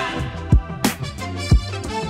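Background music with a steady beat: deep kick drum hits about a second apart, a sharp snare-like hit between them, and held bass notes underneath.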